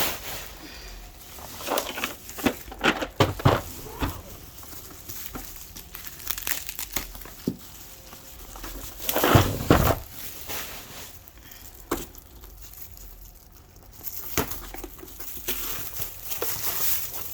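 Bubble wrap and plastic packaging being unwrapped and crumpled by hand, in irregular crinkling bursts, the loudest about nine to ten seconds in.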